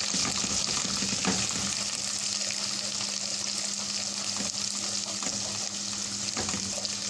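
Ground spices frying in hot oil in a steel pot, a steady sizzle, with a spatula stirring and scraping the pot now and then.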